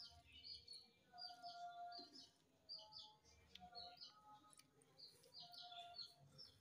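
Faint chirping of small birds: short, high chirps repeating every second or so.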